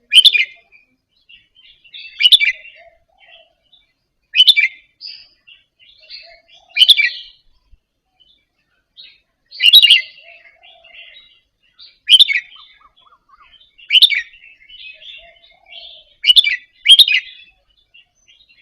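Red-whiskered bulbul singing: short, bright chirping phrases about every two seconds, with soft twittering in between; near the end two phrases come back to back.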